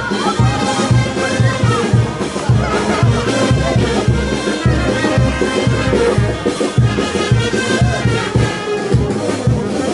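Live carnival jaujino dance music from a band with brass instruments over a steady low beat.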